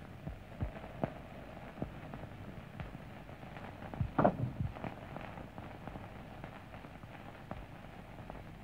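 Faint hiss and crackle of an old film soundtrack with scattered clicks, and a short cluster of knocks or thumps about four seconds in.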